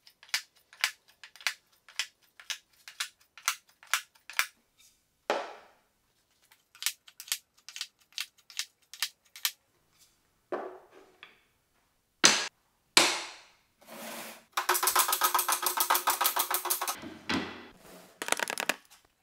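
End-grain wooden blocks of maple, walnut and cherry clacking against each other as they are flipped and set into a pattern: a long series of sharp, separate clicks. A few louder knocks follow, and then, about two thirds of the way in, a fast clattering run of wood on wood as the blocks are moved together.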